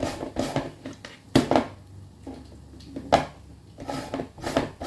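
Vegetable being shredded on a hand-held plastic grater: quick repeated rasping strokes, about three a second, with two harder knocks about a second and a half in and about three seconds in.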